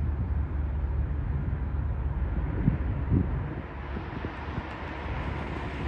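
Wind buffeting the microphone over a steady low rumble, with a couple of gusts a little before halfway. Underneath, the distant jet noise of an Airbus A350 airliner on final approach grows louder in the second half.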